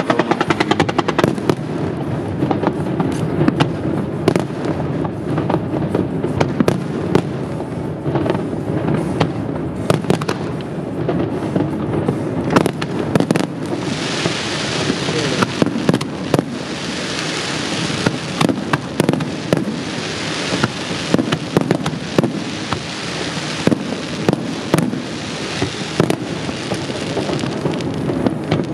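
Aerial firework shells bursting in a rapid, uneven string of bangs over a continuous low rumble, with a hiss from the bursting stars for stretches from about halfway through.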